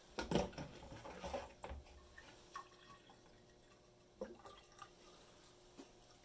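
Water draining from the bottom outlet of a sand-filled permeameter column, falling in a thin stream and dripping into a container below. It makes irregular small splashes and drips, busiest in the first two seconds and then only the odd drip.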